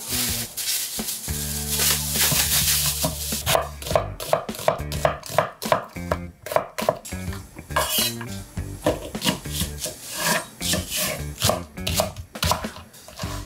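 Kitchen utensils clinking and scraping against pots and dishes while cooking, a quick run of short knocks from about three seconds in.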